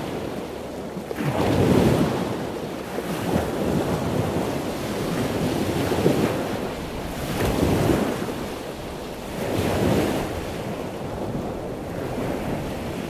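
Ocean surf washing onto a sandy beach, rising in surges every couple of seconds, with wind on the microphone.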